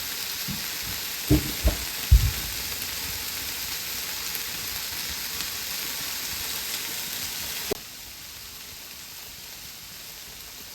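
Food frying in hot oil: a steady sizzling hiss with a few soft knocks about a second or two in. The hiss drops suddenly to a quieter level about three-quarters of the way through.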